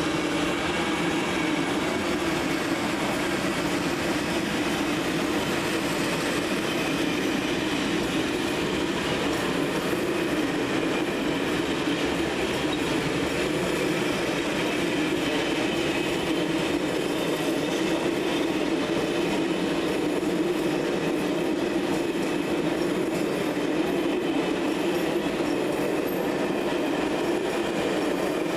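Train running on the rails: a steady, unbroken rumble of wheels and track, with a faint high ringing on top.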